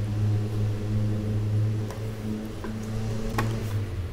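A steady low hum, with a couple of faint clicks, one about two seconds in and another near the end.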